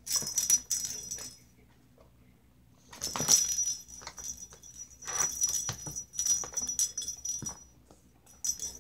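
A small plastic cat ball toy with a bell inside jingling in several spells as kittens bat it around, the longest spell about three seconds, with light clicks and knocks of the ball and paws.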